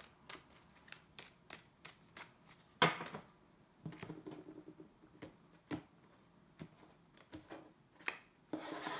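A tarot deck being shuffled by hand: cards clicking and snapping at irregular intervals, with a sharper slap just under three seconds in.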